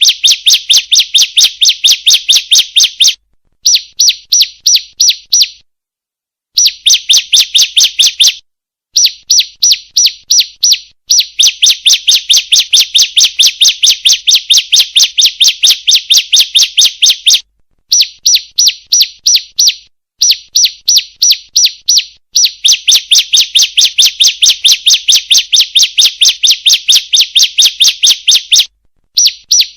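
Female bar-winged prinia (ciblek) calling: a fast series of sharp high chirps, about five a second, in runs of a few seconds broken by short pauses.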